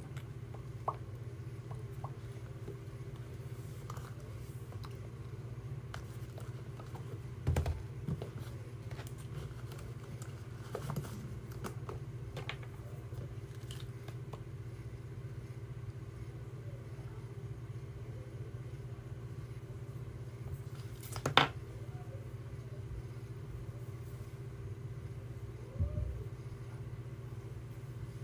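Steady low room hum with a few short handling clicks and knocks; the sharpest comes about two-thirds of the way through.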